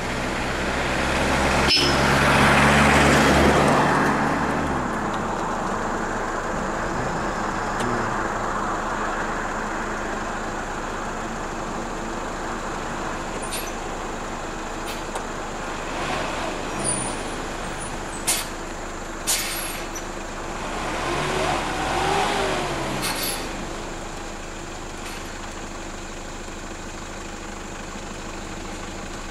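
Motor vehicles running on the road: one goes by loudly a couple of seconds in, its engine note dropping away, and another engine rises and falls about two-thirds of the way through. A few sharp clicks come just before it.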